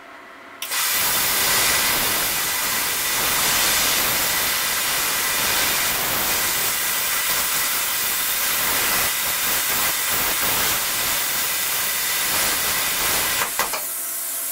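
Cut 50 ST plasma cutter cutting 6 mm stainless steel at 20 amps: the arc strikes about half a second in and runs as a loud, steady hiss with a faint high tone in it. Near the end it cuts out with a few clicks, and a quieter hiss of air carries on from the torch.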